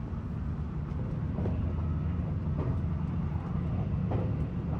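Passenger train running, heard from inside the carriage: a steady low rumble with a few faint clicks.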